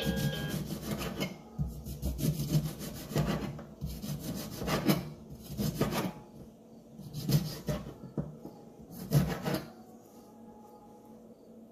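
Kitchen knife cutting lemons on a cutting board: a string of uneven slicing strokes, each ending in a knock of the blade on the board, which stop near the end.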